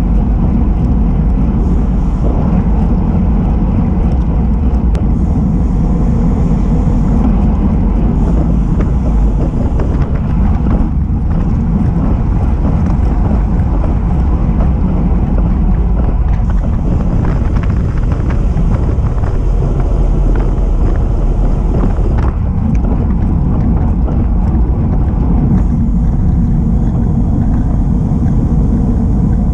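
Wind buffeting the microphone of a camera riding on a road bike at speed: a loud, steady low rumble.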